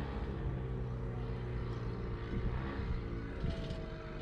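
Boat engines running steadily during a docking manoeuvre, a low hum whose pitch shifts about two and a half seconds in, with a higher whine joining near the end.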